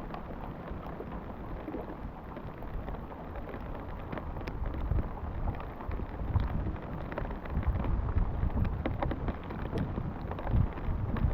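Rain pattering, with many scattered sharp drop hits, and wind buffeting the microphone, which grows stronger in the second half.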